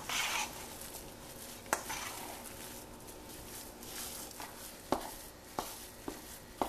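Spatula mixing a thick, coarse chana dal pakoda dough in a stainless steel bowl: soft scraping and squishing of the dough, with a few sharp clicks of the spatula against the bowl at irregular moments.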